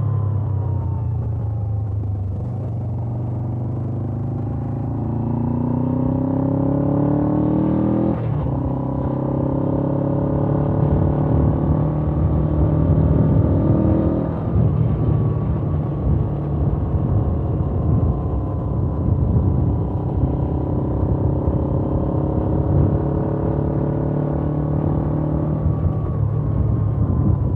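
Suzuki GS500F's stock-exhaust parallel-twin engine under way: the revs climb steadily, drop suddenly about eight seconds in as a gear change, climb again, fall back around the middle, and then hold at a steadier, uneven running speed.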